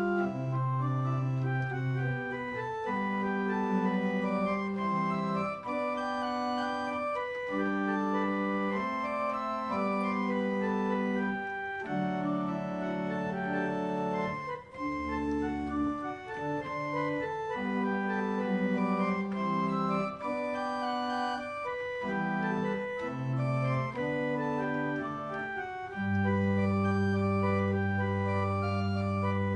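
Church pipe organ played in held chords over a moving bass line, with a fuller chord sustained over the last few seconds.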